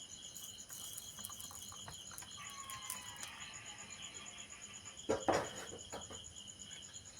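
Insects, crickets by their steady pulsed chirping, trilling continuously in the background, with a brief knock about five seconds in.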